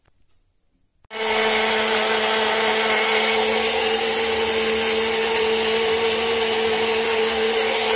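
Electric mixer grinder switching on about a second in and running steadily at full speed with an even motor whine, grinding tomatoes, green chillies, ginger and garlic into a wet paste.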